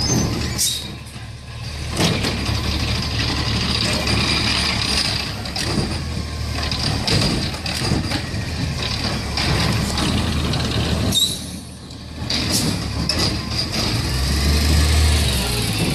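McNeilus ZR automated side-loader on a natural-gas Autocar ACX garbage truck dumping a cart: the engine runs up to drive the arm's hydraulics, and the cart is shaken and slammed at the top of the hopper with a series of knocks and bangs. The engine rumble swells near the end.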